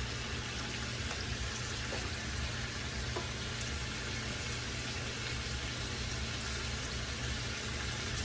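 Cooked vegetables and noodles sizzling steadily in a pan of hot olive oil and minced garlic, with a few faint ticks.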